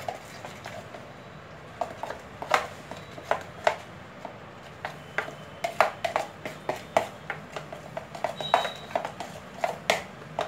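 A spoon stirring curd in a plastic mixing bowl, giving irregular sharp clicks and taps as it knocks and scrapes against the bowl.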